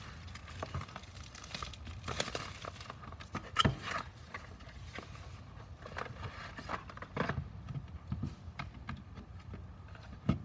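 A cardboard charger box being opened by hand and a ToolKitRC M4Q charger lifted out of it: scattered rustles, scrapes and light knocks of card and plastic. The sharpest knock comes about three and a half seconds in.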